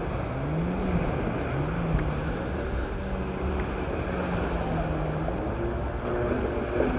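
Jet ski engine droning at a distance, its pitch rising and falling a few times as the craft turns, then holding steady. Behind it runs steady wind noise on the microphone with surf.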